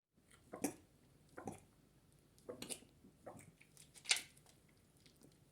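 Domestic cat retching as it vomits: a series of about five short heaves roughly a second apart, the loudest about four seconds in.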